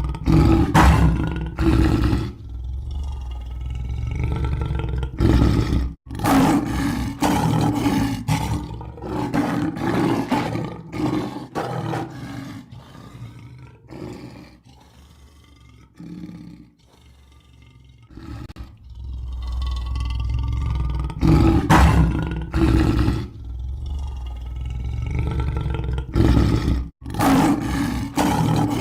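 Lion roaring: long, deep roars that trail off into a run of shorter grunting roars, then a quieter stretch before the roars build again. The sound breaks off abruptly for a moment twice, like a splice in a looped recording.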